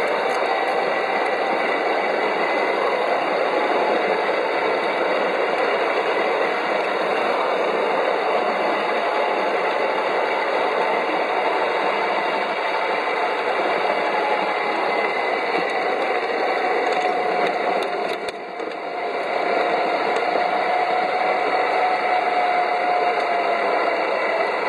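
Two locomotives of a 5-inch gauge ride-on garden railway double-header running along the track, with steady wheel-on-rail rattle and a faint whine that drifts slightly in pitch. The noise dips briefly about eighteen seconds in.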